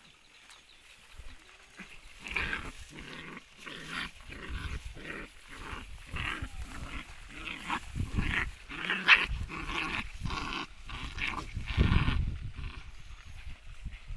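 Two desi puppies fighting, growling and yapping in quick, short bursts that start about two seconds in and die down near the end.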